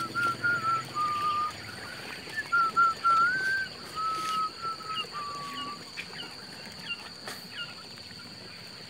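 A run of clear whistled notes, each held briefly and stepping up and down in pitch like a tune, then a few short rising chirps about six seconds in. A thin, steady high-pitched tone runs underneath.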